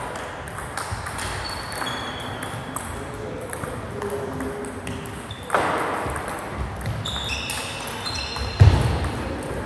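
Table tennis rally: the ball clicks in quick succession off the bats and the table, the bounces ringing briefly. A sharper crack comes a little past halfway, and a heavy low thud near the end.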